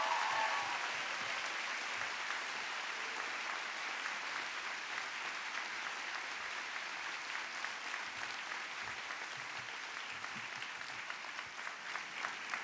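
Large audience of graduates applauding, loudest at the start and slowly easing off.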